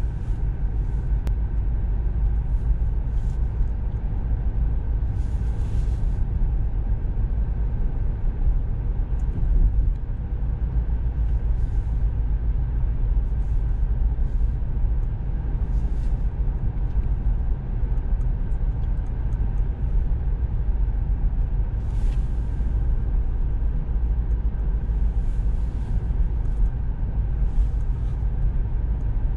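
Steady low road and tyre rumble heard inside the cabin of a Tesla Model 3, an electric car, cruising at about 50 km/h. A few brief hissing sounds pass over it.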